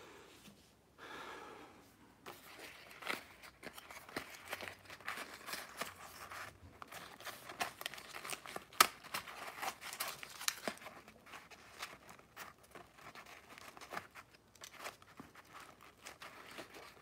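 Handling noise close to the microphone: irregular rustling and crinkling with many sharp little clicks.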